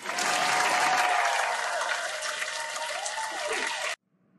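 Recorded audience applause used as a transition sound effect, loud at first and easing a little, then cutting off suddenly near the end.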